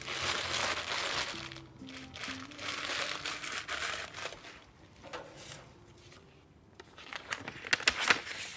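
Soft background music with a few held notes under a rustling, crinkling noise. Near the end, sheets of paper rustle and crinkle sharply as they are picked up and handled.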